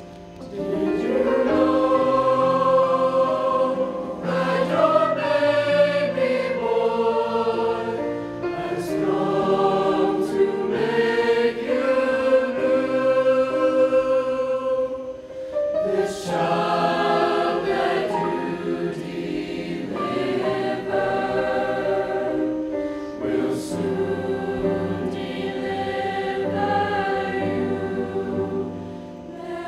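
High school choir singing a holiday song in several voice parts, with held notes and short breaks between phrases.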